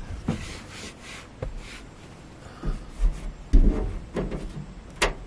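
Duvet and bedding rustling with dull thumps as a person crawls across a bed platform, then a few sharp clicks near the end.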